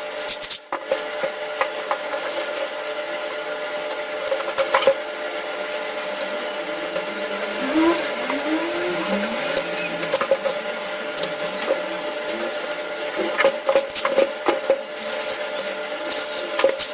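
An electric power-tool motor running steadily with a constant whine, with scattered clicks and knocks over it.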